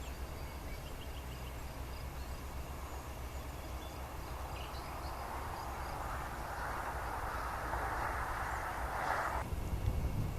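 Steady low rumble of jet airliner noise at an airfield, with a rushing hiss that builds over a few seconds and cuts off suddenly near the end.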